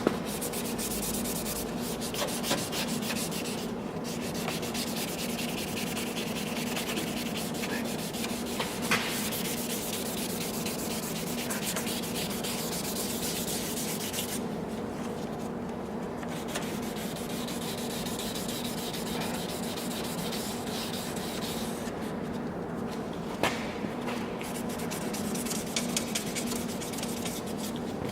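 A drill spinning a buffing pad with 500-grit sandpaper, sanding a faded plastic headlamp lens: a steady motor hum under a continuous scraping hiss. The hiss drops away briefly a few times while the hum carries on.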